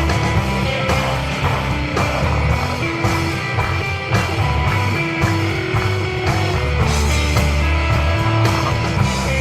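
Live instrumental desert rock from a guitar, bass and drums trio: sustained electric guitar lines over a heavy bass line and steady drumming.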